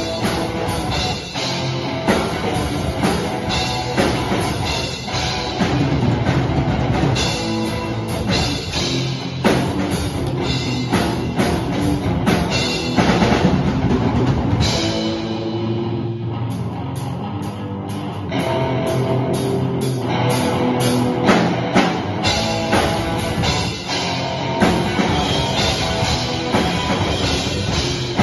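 Live rock band playing: guitars over a drum kit, with no singing. The drums drop back for a few seconds about halfway through, then come back in.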